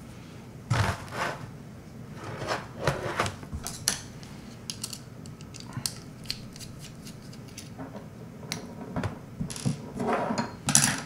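Small metal XLR connector being taken apart by hand: irregular light clicks, taps and scrapes of its metal shell and parts, with a few louder rustling scrapes about a second in, in the middle and near the end.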